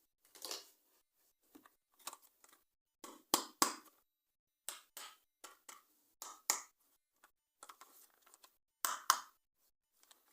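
Unboxing and handling of a toy and its packaging: short, separate rustles and crinkles with a few sharp clicks.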